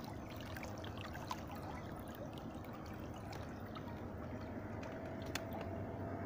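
Water trickling and splashing in the wash of a small inflatable boat driven by a Fisher 55 electric trolling motor, over a steady low hum. A few sharp ticks sound through it.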